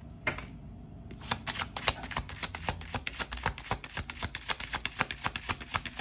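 A deck of tarot cards being shuffled by hand, the cards flicking against each other in a quick, continuous run of small clicks that starts about a second in.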